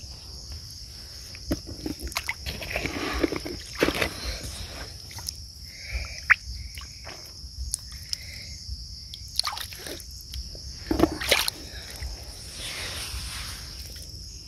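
Hands scooping and sloshing through wet sand and shallow muddy water in irregular splashes and squelches, with a steady high insect drone behind.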